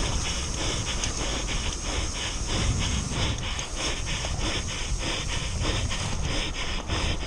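Mountain bike ridden fast down a dirt singletrack, heard from a rider-mounted action camera: wind rushing over the microphone with the tyres and bike rattling over the ground, and a fast, even run of hissing pulses, about four to five a second.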